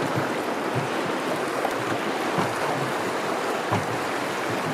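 Choppy river floodwater rushing past and slapping against a small boat's hull: a steady wash of water with irregular low knocks as the waves hit.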